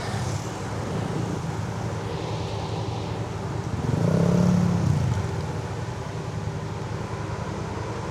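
Kymco AK550 maxiscooter's parallel-twin engine running steadily over a hiss of wet road and wind noise. About four seconds in, a louder vehicle engine swells up and fades away within about a second.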